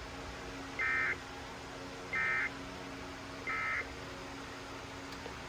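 Emergency Alert System end-of-message signal: three short, identical bursts of digital data tones, evenly spaced about a second and a half apart, marking the end of the relayed severe thunderstorm warning. A steady hum from the radio runs underneath.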